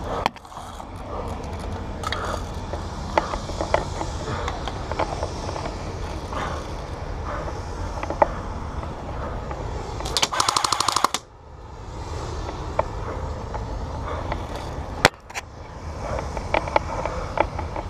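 Airsoft guns firing: scattered sharp pops and clicks, a rapid full-auto burst of about a second from an electric airsoft rifle a little past the middle, and one loud single crack near the end, over a steady low rumble.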